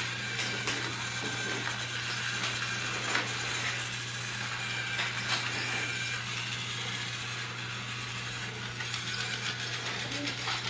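Battery-powered toy train's small motor and gears running steadily, with a steady low hum and many irregular clicks as it runs along plastic track.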